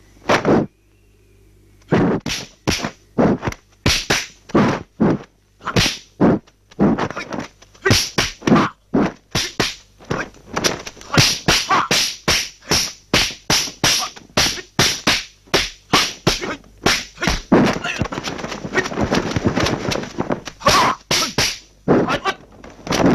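Dubbed-in punch and strike sound effects of a kung fu film fight: a rapid string of sharp whacks, about two to three a second, after a brief lull near the start.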